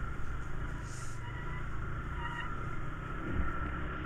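Scooter engine running steadily on the move, a low rumble under road and wind noise, with a thin steady whine above it.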